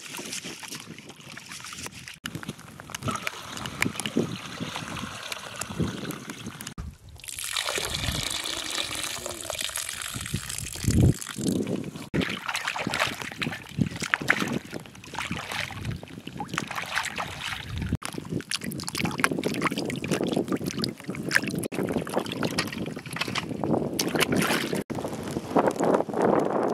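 Water sloshing and trickling as hands wash rice, then vegetables, in water.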